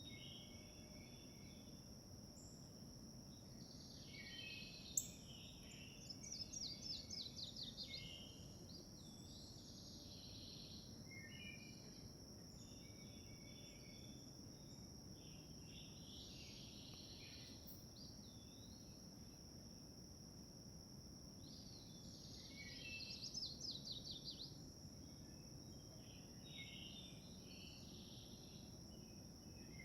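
Faint birdsong: scattered short calls and chirps, with two quick rapid trills, one about six seconds in and one about twenty-three seconds in, over a steady high insect drone. A single sharp click comes about five seconds in.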